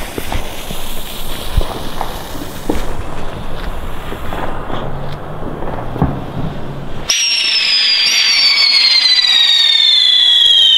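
Funke Tornado-Wirbel ground-spinner firework: several seconds of crackling and scattered clicks as the fuse burns, then about seven seconds in it ignites and spins with a loud whistle that slowly falls in pitch.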